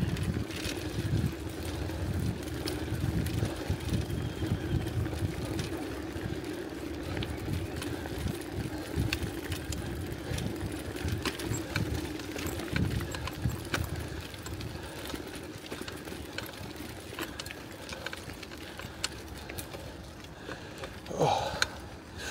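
Bicycle being ridden over a rough dirt and gravel track: a steady tyre hum with scattered clicks and rattles, and a low irregular rumble. A brief louder pitched sound comes near the end.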